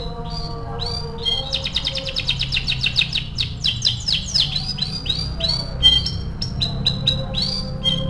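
Canary singing: scattered chirps, then about a second and a half in a fast trill of rapidly repeated notes, around ten a second, lasting some three seconds, then separate chirps again.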